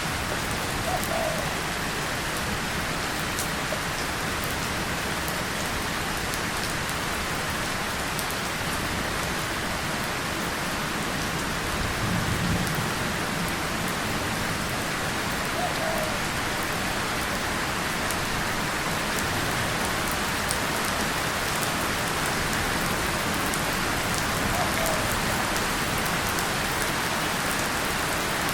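Steady rain falling on a tin surface and leaves, with individual drops ticking. A brief, low roll of distant thunder comes about twelve seconds in.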